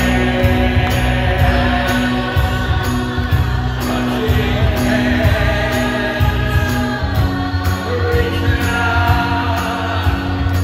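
Live Broadway musical finale: the cast singing together in long held notes with the band, over a steady beat of about two a second.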